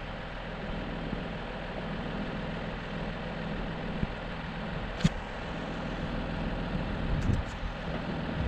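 Four-wheel-drive vehicle driving on a rough dirt track: steady engine and road rumble, with a sharp knock about five seconds in.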